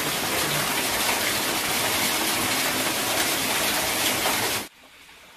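Small waterfall splashing down onto rocks: a steady rush of falling water that cuts off suddenly near the end, leaving only a faint background.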